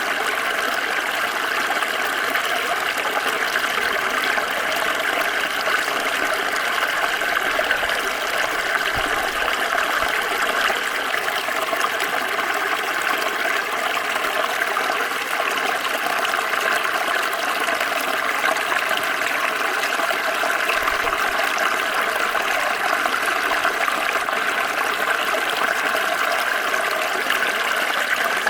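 Small stream flowing over stones, a steady even babble of running water.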